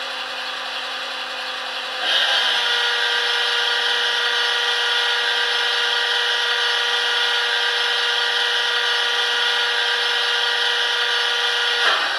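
Sound decoder of a Piko TT-scale BR 130 'Ludmilla' model diesel locomotive playing its factory engine sound through the model's small speaker, a steady pitched drone. About two seconds in it steps up louder and brighter as the engine notches up, then holds steady.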